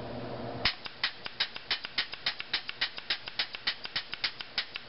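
Ion paintball marker with a prototype two-stage anti-chop bolt being fired rapidly while a paintball blocks the breech: a quick, even run of sharp puffing clicks, about six or seven a second, starting under a second in. Each is the gun venting as the low-force bolt stops against the ball without breaking it.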